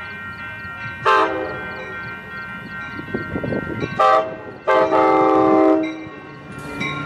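Amtrak Capitol Corridor passenger train sounding its multi-chime horn at a grade crossing: a short blast about a second in, another short blast around four seconds, then a longer blast of about a second. Steady ringing, likely the crossing bells, runs beneath it, along with the train's rumble.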